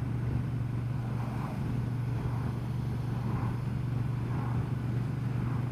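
Honda Transalp XL750's parallel-twin engine running at a steady, even pitch under a constant rush of noise, with no revving or gear changes.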